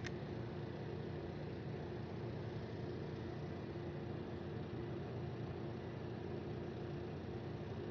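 An engine idling steadily: a continuous low hum with a faint steady tone, unchanging throughout.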